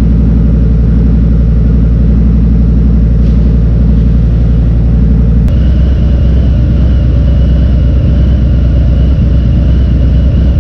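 Harley-Davidson Fat Bob 114's Milwaukee-Eight 114 V-twin idling steadily with a loud, pulsing beat. It is warming up so that the oil will drain faster for an oil change.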